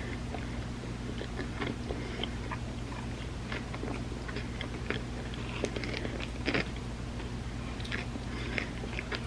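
Close-miked eating sounds of someone biting and chewing a soft layered dessert lasagna of tortillas, chocolate and peanut butter: many small, irregular mouth clicks and smacks over a steady low hum.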